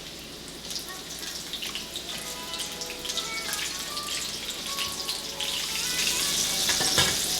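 Flour-coated fish pieces frying in hot oil: a crackling sizzle that grows louder over the last couple of seconds.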